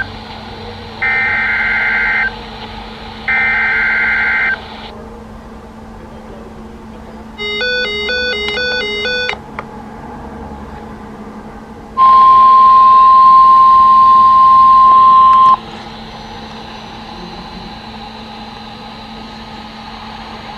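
Emergency Alert System signal from a NOAA weather radio. It opens with the last two of three raspy one-second SAME data bursts, then a short run of rapidly alternating electronic beeps. About twelve seconds in comes a loud steady 1050 Hz warning alert tone lasting about three and a half seconds, which signals a tornado warning, here a test, and after it only radio hiss.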